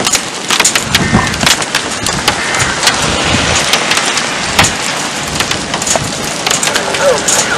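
Rain during a severe thunderstorm: a steady rush with many sharp, crackling taps throughout.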